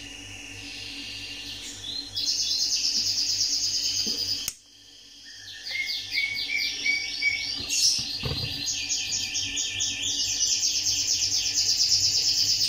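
Rapid, rhythmic high-pitched chirping of small wild creatures in the background, several chirps a second. About four and a half seconds in there is a sharp click, the sound drops away briefly, and then the chirping builds back.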